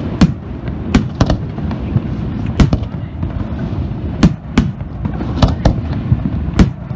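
Aerial fireworks display: a quick, irregular string of sharp bangs, about ten in seven seconds, some in close pairs, over a continuous low rumble of shells bursting.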